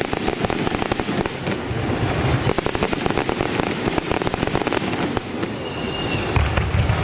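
Aerial fireworks crackling: a dense, rapid rattle of many small pops that thins out about five seconds in, with a low rumble near the end.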